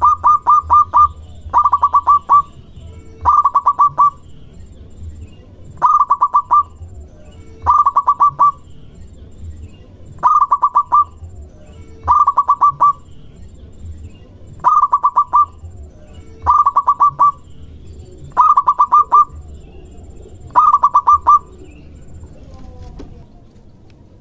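Zebra dove (perkutut) cooing: short bursts of rapid staccato coos repeated about every two seconds, stopping a few seconds before the end.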